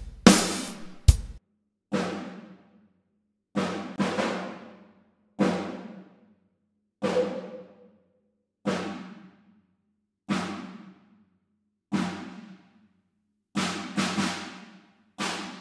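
A single sampled drum from Superior Drummer 3, struck about every one and a half to two seconds, sometimes twice in quick succession, each hit ringing out and fading. It is heard through an EQ whose narrow band is being swept to hunt for resonances: about seven seconds in, one hit carries an extra ringing overtone.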